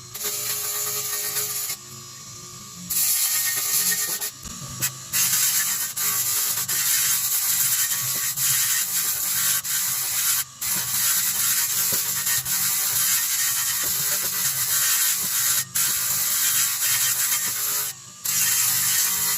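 Abrasive rasping on metal, as in sanding or grinding, with a steady motor-like hum under it. It runs in long stretches that stop briefly several times.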